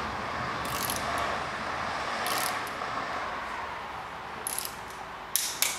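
Click-type torque wrench ratcheting a connecting-rod big-end cap bolt in short strokes, then breaking with a sharp click near the end: the 20 Nm first-stage torque has been reached.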